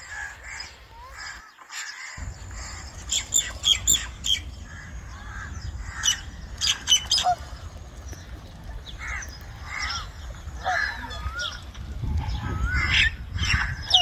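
Mixed waterbirds calling: clusters of short, sharp calls and squawks, then from about nine seconds in, wavering honk-like calls, over a steady low rumble.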